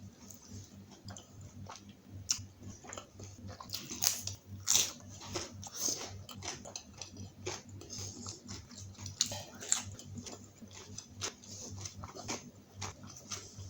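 A person eating close to the microphone: irregular chewing and biting with wet mouth clicks and occasional crunches.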